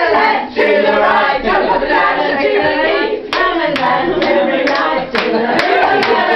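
A group of people singing together, with scattered hand claps.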